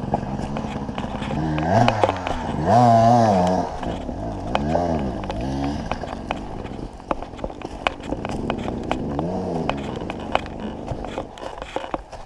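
2019 KTM 300 XC's two-stroke engine revving up and down in several surges while picking over rough trail, with sharp clicks and knocks throughout.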